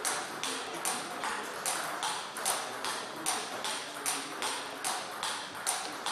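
Table tennis ball clicking off the bats and table in a steady, fast rally, about two to three sharp hits a second.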